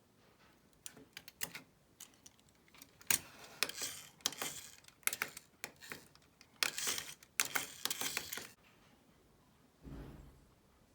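Small hard plastic parts being handled, clicking and rattling in quick clusters, with a dull thud near the end.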